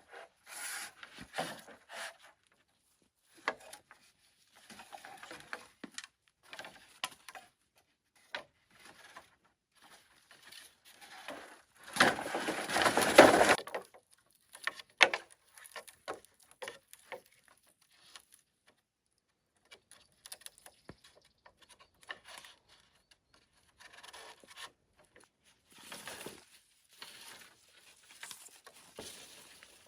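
Bamboo being handled and worked by hand: scattered light knocks and scrapes, with a louder continuous noise lasting about two seconds near the middle.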